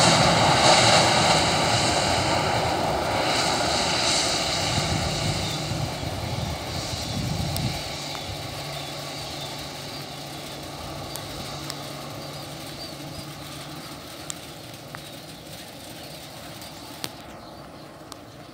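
Twin jet engines of an Airbus A320-family airliner during the landing rollout on a wet runway: a loud, steady jet noise with a thin whine. It is strongest at first, drops in the low end about eight seconds in, then fades steadily as the aircraft rolls away.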